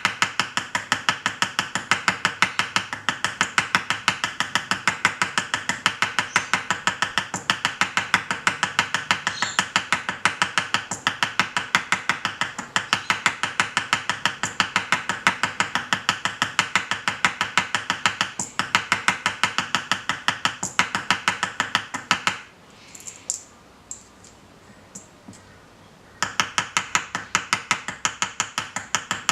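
A small hammer tapping rapidly and steadily on the end of a wire rivet, peening it over into a rounded mushroom head on a piece of jewellery. The taps stop for a few seconds about three quarters of the way in, with only a couple of light knocks, then start again.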